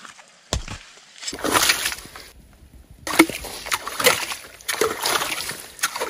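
Muddy water sloshing and splashing in irregular bursts as a shovel digs into a flooded, freshly cut drainage ditch.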